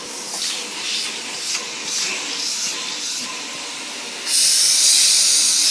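Vacuum cleaner running with a hissing rush of air, which turns much louder and steady about four seconds in.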